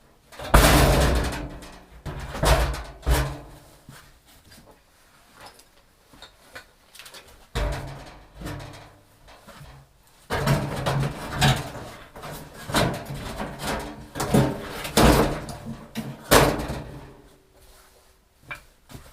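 Irregular clunks, knocks and scraping of washing machine parts being handled and fitted together by hand. The loudest thumps come about half a second in and again near the end, with a quieter lull in the middle.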